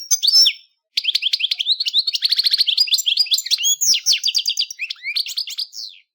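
European goldfinch singing: a fast, tinkling twitter of short chirps and buzzy trills, a brief phrase, then a longer run of song about a second in that stops shortly before the end.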